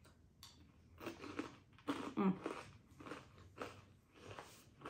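Close-up chewing of crunchy caramel-coated corn puffs (Beaver Nuggets), with crunches about two a second.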